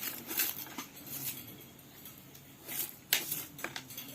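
A cockatiel pecking at its food: scattered sharp clicks and taps of its beak, several in the first second and the loudest about three seconds in.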